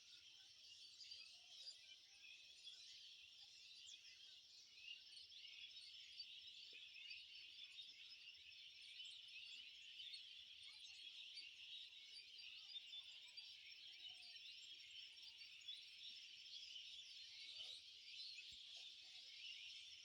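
Faint, continuous chorus of many small birds chirping at once, a dense layer of short high calls with no single voice standing out.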